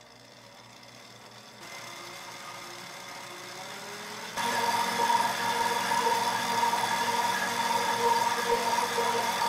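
Electric stand mixer running, its whisk beating strawberry purée into whipped cream. The motor sound is faint at first, gets a little louder about a second and a half in, then jumps much louder about four and a half seconds in to a steady hum with a whine, as it beats at higher speed.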